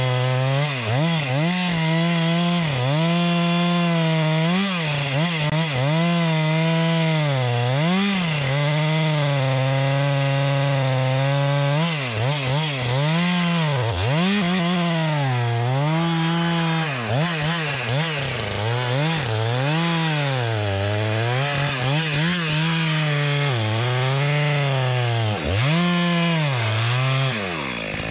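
Two-stroke chainsaw at high revs cutting timber, its pitch dipping and recovering every second or so as it works through the wood. The engine note falls away near the end.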